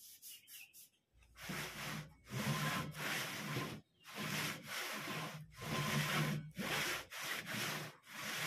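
Wood rubbing and sliding on wood: a run of back-and-forth strokes, each about a second long, as a wooden strip is pushed over the plywood top of a homemade table saw.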